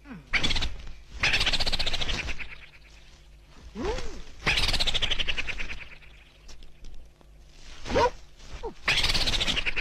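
A large cloth sheet swung hard and slapped down on a dirt yard, making repeated swishing, flapping bursts of about a second each. Between them come a few short rising-and-falling cries.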